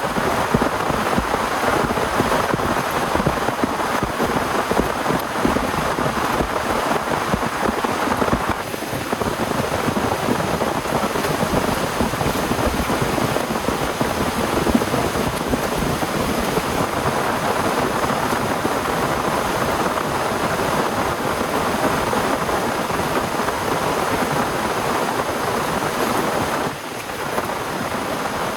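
Heavy rain falling steadily, a dense patter of drops, easing briefly about nine seconds in and dropping a step in level near the end.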